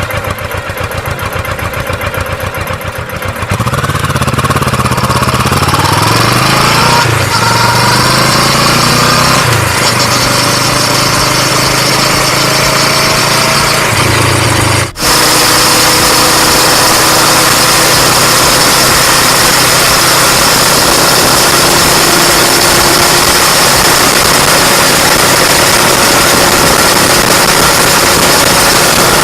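Kawasaki Vulcan S 650's parallel-twin engine heard through its stock exhaust, close up. It starts with a quick pulsing beat, then gets louder a few seconds in and rises and falls in pitch several times. After a break about halfway through it settles into a steady, loud drone.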